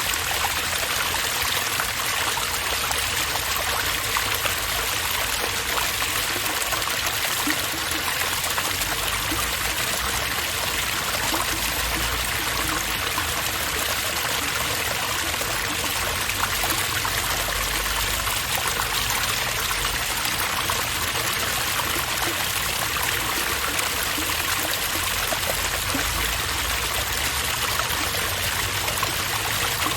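Water running steadily through a park water fountain, a continuous rushing and trickling.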